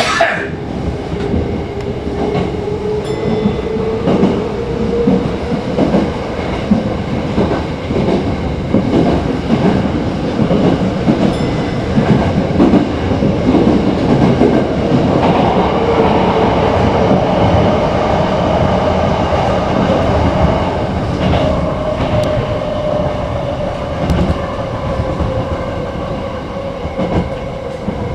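Toyo Rapid Railway 2000 series electric train heard from the driver's cab as it pulls away and runs at speed through a tunnel and out into the open. A traction-motor whine climbs in pitch as it gathers speed, over steady rail rumble and the clatter of wheels over rail joints.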